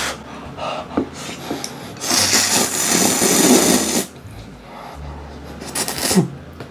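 Instant ramen noodles (Samyang ramyun) being slurped up from chopsticks: one long, loud slurp about two seconds in, lasting about two seconds, then a shorter slurp near the end.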